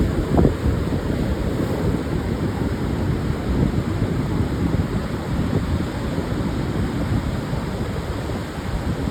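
Pacific surf breaking on a sandy beach, a steady wash of waves, with wind buffeting the microphone.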